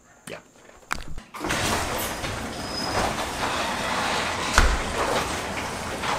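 Electric garage door opener running, hauling a sectional garage door up its tracks: a steady mechanical rattle that starts about a second and a half in, with one louder knock a little past the middle.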